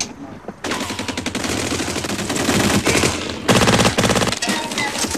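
Automatic gunfire: rapid, continuous machine-gun bursts that start just under a second in and are loudest about three and a half seconds in.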